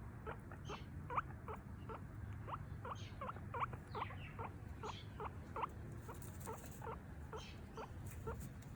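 Guinea pig wheeking: a quick run of short, high squeaks, about three a second, the call a guinea pig makes when begging for food.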